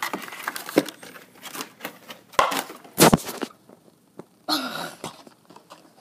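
Plastic and cardboard toy packaging being handled and pulled open: irregular crackles, rustles and clicks, with a couple of sharp loud bursts about halfway through and a short noisy rustle near the end.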